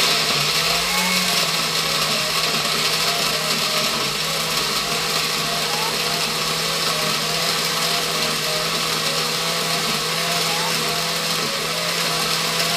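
Countertop electric jug blender running steadily at speed, blending a smoothie of milk, oats, fruit and nuts.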